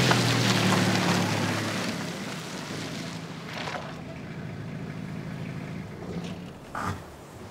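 Pickup truck engine running and fading away as the truck drives off. A short knock comes near the end.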